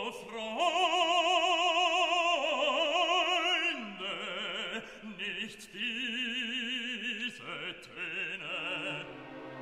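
Operatic singing: a voice holding long notes with wide vibrato, dropping to lower notes about four seconds in.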